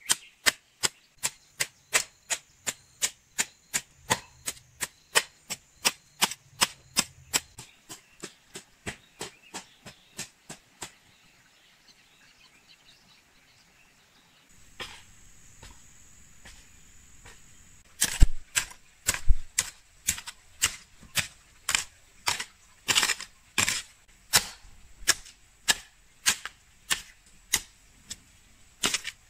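Metal hoe blade striking into clumpy garden soil, sharp chops about two a second. The chopping stops for a few seconds about a third of the way in, then starts again louder and less even.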